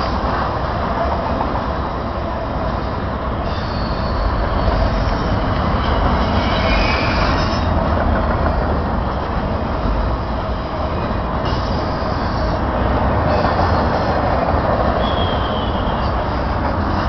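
Intermodal freight train's trailer-carrying flatcars rolling past: a steady rumble of wheels on rail, with high wheel squeal coming and going.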